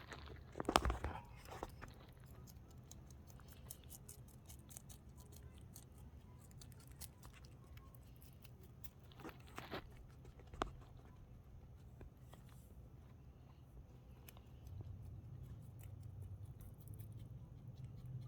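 Baby rabbit chewing romaine lettuce: faint, rapid, crisp little clicks of munching, with a few louder rustles or knocks about a second in and around ten seconds in, over a steady low hum.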